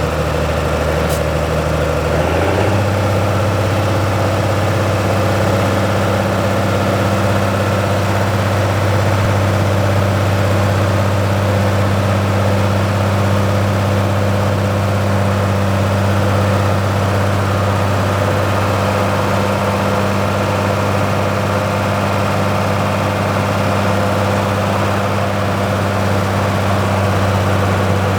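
Heavy agricultural diesel engine running steadily; its pitch steps up a little about two and a half seconds in, then holds.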